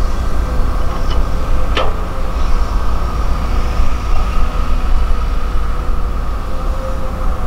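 Diesel engines of dump trucks and excavators running, a steady heavy rumble, with one sharp metallic knock about two seconds in.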